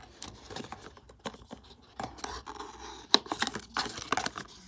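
Small cardboard advent-calendar box being pulled open and handled: irregular scratches, rustles and short clicks, with one sharp click a little after three seconds in.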